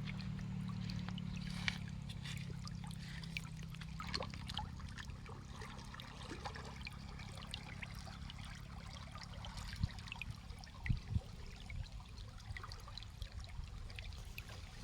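River water flowing and trickling, with many small splashes and gurgles. A low steady hum fades out about four seconds in, and a few low knocks come near the end.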